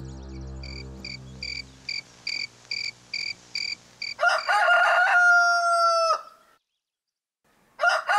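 A cricket chirps at an even pace, about three chirps a second. Then a rooster crows, a long call held for about two seconds. After a short silence a second crow starts near the end.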